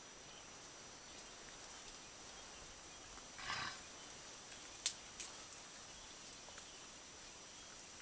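A single short, breathy cough from a sick silverback mountain gorilla about three and a half seconds in, followed a second later by a few sharp clicks.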